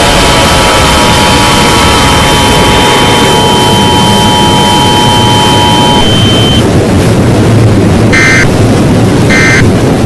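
A very loud, distorted mix of layered scary sound effects: a dense harsh noise with steady high tones that stop about six seconds in, then three short electronic beeps about a second apart near the end.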